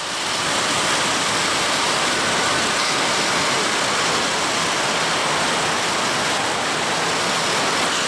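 Steady rushing noise of a freight train rolling across a rail bridge, even and unbroken, with no horn or distinct clanks.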